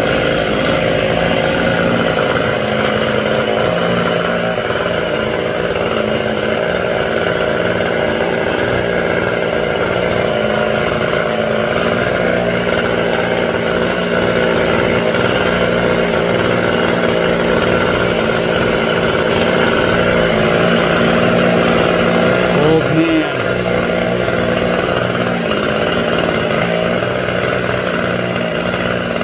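Chainsaw running steadily at high speed while trimming limbs of a live oak. It briefly drops and picks back up in pitch about three quarters of the way through.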